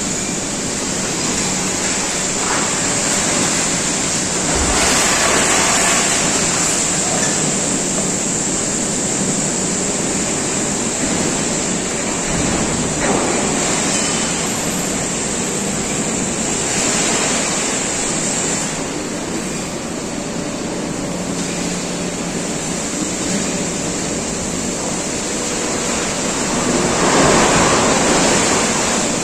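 Scrap metal pouring and clattering out of a tipped shipping container onto a scrap heap, a dense, steady rushing din that grows louder about five seconds in and again near the end.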